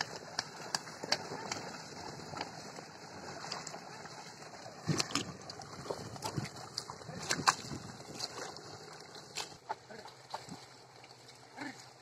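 Pair of bullocks dragging a wooden plank leveller through flooded paddy mud: water sloshing and splashing under their hooves and the board, with scattered short clicks and knocks, busiest about five and seven seconds in.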